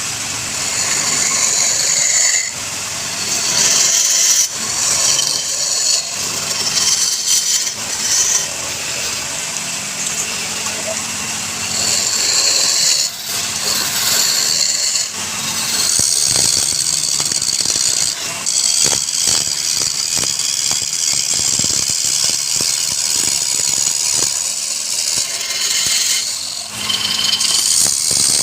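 Wood lathe with a turning tool cutting into the spinning wood: a loud hissing scrape that swells and eases in passes, broken by a few brief pauses.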